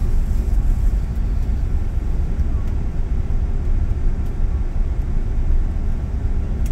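Steady low rumble inside the main-deck cabin of an Airbus A380, from its Rolls-Royce Trent 900 engines and the airframe.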